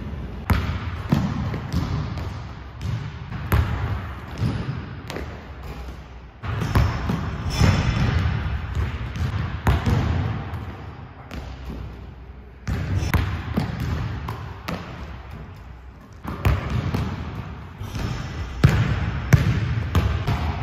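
A basketball being dribbled and bounced on a hardwood gym floor: repeated sharp thumps, several a second in runs, over a low rumble of the hall. The background changes abruptly three times where separate takes are cut together.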